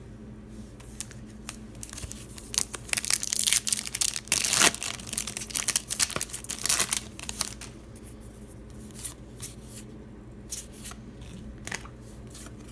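A trading-card pack wrapper being torn open and crinkled: a dense stretch of tearing and crackling from about two seconds in to seven, then a few scattered crinkles, over a steady low hum.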